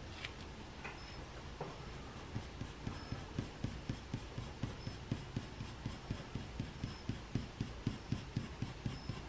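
Pencil shading on drawing paper in quick, even back-and-forth strokes, about three to four a second, starting about two seconds in.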